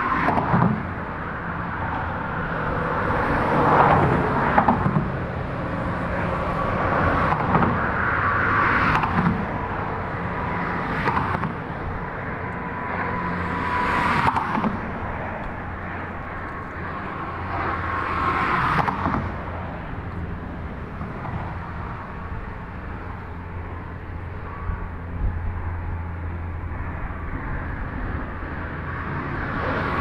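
Highway traffic on the Hoover Dam bypass bridge passing behind the concrete barrier. Vehicles swell past every few seconds over a steady low rumble.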